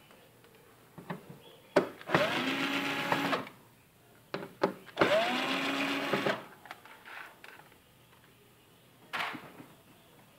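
Electric screwdriver run twice, each time for about a second and a half. The motor whirs up in pitch, then runs steady as it backs out the screws holding an LCD TV's power supply board. A few small clicks come between the two runs.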